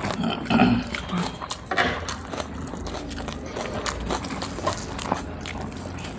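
Close-miked eating: mouths chewing full mouthfuls of rice, with irregular soft clicks and smacks, and fingers working rice on brass plates.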